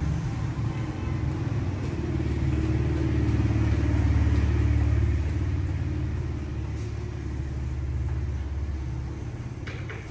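A low, steady rumble with a deep hum, swelling to its loudest around the middle and easing off towards the end.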